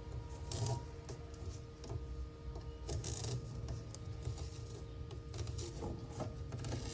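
Light scraping, rubbing and scattered small clicks of hands and tools working on a window screen in its frame, with a low steady rumble underneath.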